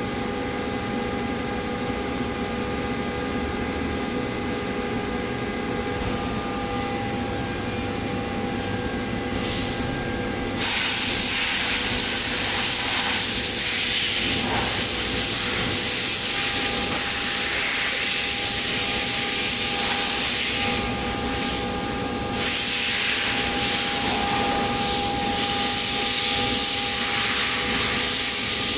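Omax 60120 abrasive waterjet cutter: a steady machine hum with several steady tones. About ten seconds in, the cutting jet comes on with a loud, steady hiss, which drops away briefly a couple of times.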